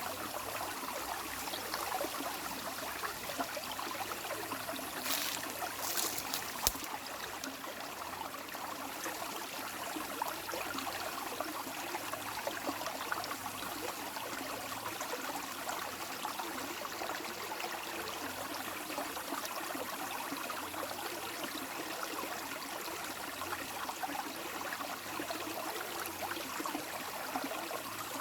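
Running water flowing and babbling steadily, with a brief high hiss and a single sharp click about six to seven seconds in.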